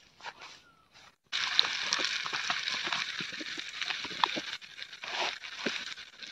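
Raw chicken pieces going into hot oil in a pan over a wood fire: a sudden sizzle starts about a second in, then steady sizzling with crackles.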